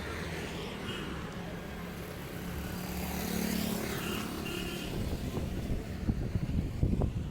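Street traffic: a motor vehicle's engine hum swells as it passes about midway, and irregular low thumps of wind buffeting the microphone come in during the last couple of seconds.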